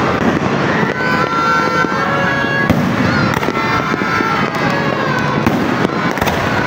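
Aerial fireworks display: steady, dense crackling from bursting shells, with sharp bangs about two and a half seconds in and twice more near the end, and thin wavering high tones over it.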